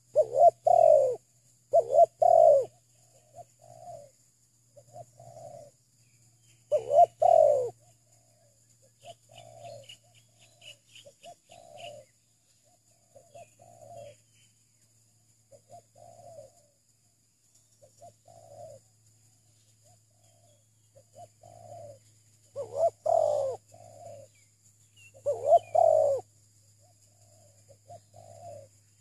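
Spotted doves cooing. A close, loud bird gives strong coos near the start, at about seven seconds and twice near the end, while fainter cooing repeats every second or two in between.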